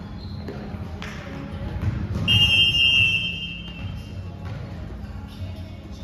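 Referee's whistle blown once in a single shrill blast of about a second and a half, heard over the low rumble of a sports hall with scattered ball and footstep thuds.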